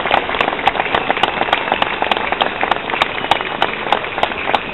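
Open-air crowd applauding, a dense patter of many hands clapping, with a drawn-out shrill whistle held over it at times.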